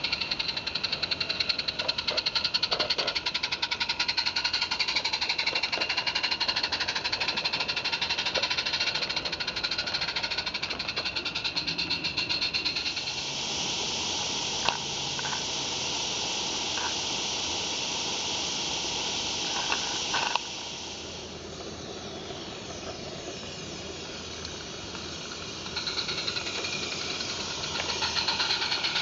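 Roundhouse Jack 0-4-0 live steam garden railway locomotive running with its train, a fast, even mechanical beat. About 13 seconds in it gives way to a steady steam hiss from the standing locomotive, which cuts off suddenly some seven seconds later. The running beat starts again near the end.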